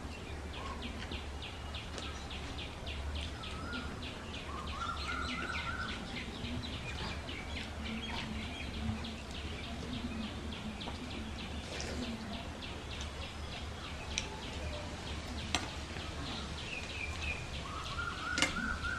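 A bird chirping in a fast, even run of short high notes, about four a second, through the first half and again near the end, with a couple of short rising calls. Underneath are a low steady hum and faint sounds of hands mixing and eating soaked wet rice.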